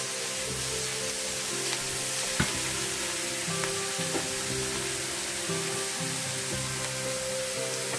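Prawns, egg, carrot and mushroom sizzling in a stainless steel frying pan while a spatula stirs them, with a few clicks of the spatula on the pan and one sharper knock about two and a half seconds in.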